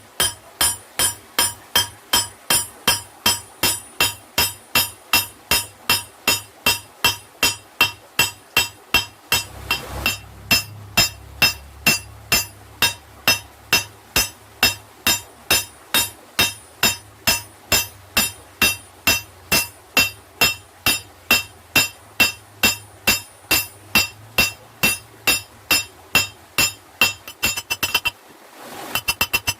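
Forging hammer striking the steel of an old stone chisel on an anvil, about two blows a second at a steady pace, each blow ringing metallically. A low hum joins about a third of the way in, and near the end, after a brief pause, the blows come quicker and lighter.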